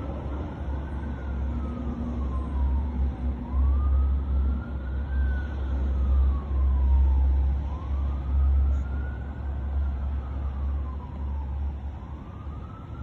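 Emergency vehicle siren in a slow wail, its pitch rising and falling about every three to four seconds, over a heavy low rumble.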